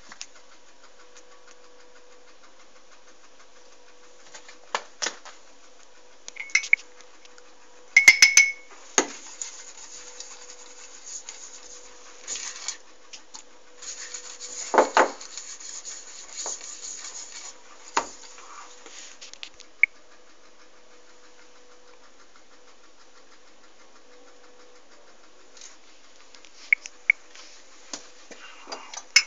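Kitchen handling noises at a stovetop: scattered clinks and knocks of frying pans, a glass and utensils, with a sharp ringing clink about eight seconds in and a few seconds of scraping and rubbing around the middle. A faint steady hum runs underneath.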